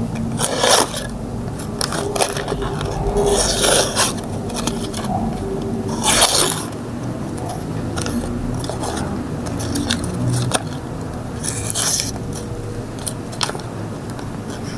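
Plastic wrapping, bubble wrap and paper crinkling and rustling in irregular bursts as they are peeled off a knife blade by hand.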